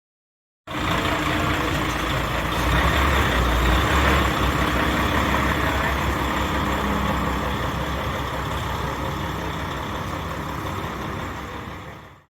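Heavy truck's diesel engine running as it pulls away, with a deep rumble that is loudest about three to four seconds in, then slowly dying down; the sound starts and stops abruptly.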